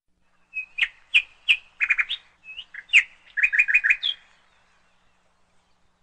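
A songbird chirping: a quick run of short, sharp whistled chirps, some in fast groups of three or four, stopping about four seconds in.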